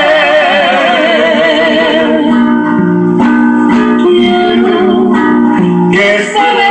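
Acoustic guitar playing a melodic passage of plucked notes and strums. It follows a long held sung note with a wide vibrato that fades out about two seconds in.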